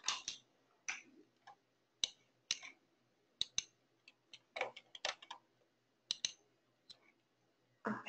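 Faint, irregular computer mouse clicks and keyboard taps, a dozen or so, some in quick pairs like double-clicks.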